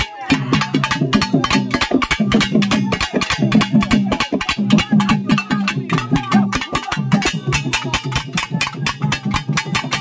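Fast, steady drumming of about six or seven beats a second, with a low pitched ring beneath the strokes.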